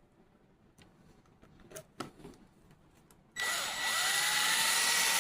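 A few light clicks of parts being handled, then a power drill starts about two-thirds of the way in, its motor whine rising as it spins up and then running steadily, driving a fastener during pump reassembly.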